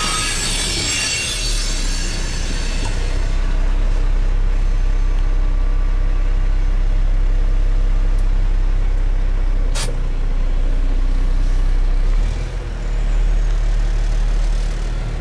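A freight train's cars rolling past with a high rail hiss that fades out over the first three seconds, then the steady low idle of a large vehicle's engine heard from inside its cab, with a single sharp click about ten seconds in.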